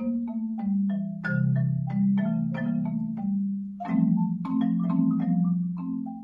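Three xylophones played together with mallets: quick, rhythmic struck notes on wooden bars over low, longer-ringing bass notes.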